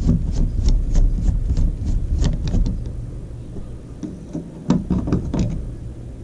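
Plastic RV wall switch and its cover plate being pried out and handled: a run of quick light clicks and knocks in the first few seconds and another cluster about five seconds in, over a low rumble.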